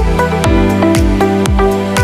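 Electronic background music: held synth chords over a steady kick drum beating about twice a second.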